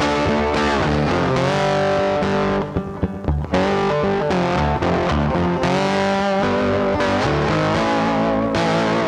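Background rock music led by a distorted electric guitar playing a melodic line over bass.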